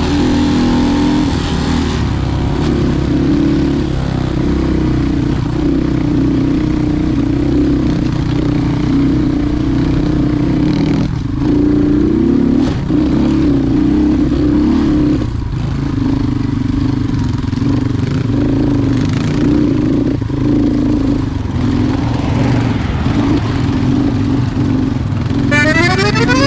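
Motorcycle engine running steadily under way, its pitch shifting slightly up and down, with road and wind noise.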